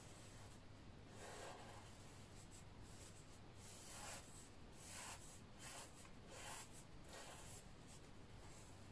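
Faint scratching of a black fineliner pen drawing over watercolour paper, in a series of short strokes, over a low steady hum.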